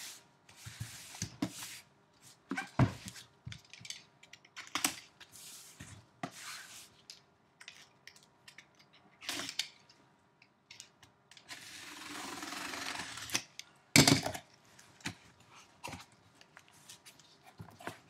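A sealed cardboard shipping case being handled and opened: scattered taps and scrapes of cardboard, then a steady rasp of about two seconds, growing louder, as the packing tape along the top is cut open, followed by a sharp knock.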